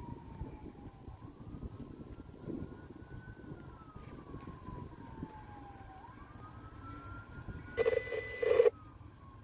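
A distant siren wailing, its pitch slowly rising and falling every few seconds, over a low steady rumble. A brief loud burst cuts in for under a second near the end.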